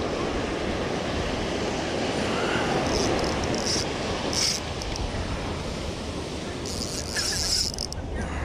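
Steady wash of ocean surf on the shore with wind noise. Several short high-pitched buzzes cut through, about three to four seconds in and again around seven seconds in.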